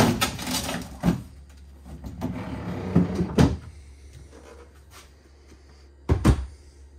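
Plastic freezer drawer and sliding tray of a Samsung French-door refrigerator being handled, with several sharp clacks, then a refrigerator door swinging shut with a dull thud about six seconds in.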